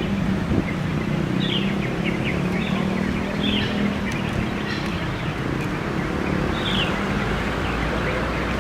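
Outdoor ambience: a steady low mechanical hum under a noise bed, with short, high bird chirps every second or so.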